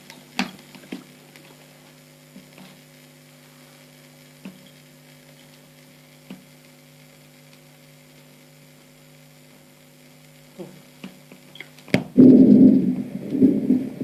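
Steady low electrical hum with a few faint clicks. About 12 seconds in, a loud, low recorded lung sound starts, swelling and fading with each breath.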